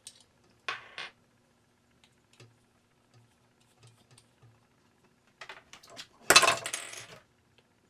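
Small clicks and rattles of hands handling a string of vintage Christmas lights while a C7 bulb is unscrewed and screwed into its socket, with one louder rattle about six seconds in.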